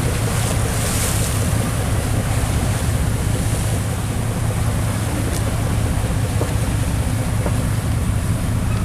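Patrol boat's engine running steadily under way at sea, with rushing water and wind on the microphone.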